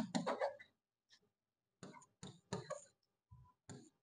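Marker writing on a board: short scratchy strokes in small clusters, with a pause of about a second just after the start.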